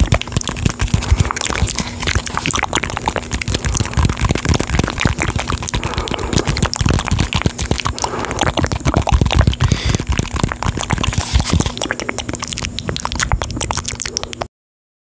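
Fingers tapping and scratching rapidly on a hollow red plastic tomato-shaped object held close to a condenser microphone, a dense stream of close-up clicks over a faint steady hum. It cuts off suddenly near the end.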